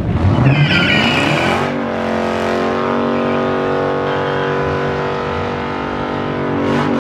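A car engine revs up quickly, with a high tyre squeal, then is held at a steady high rpm for several seconds as the tyres spin in a burnout.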